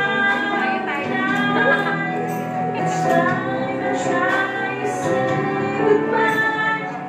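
Music: a song with a woman's singing voice over instrumental backing.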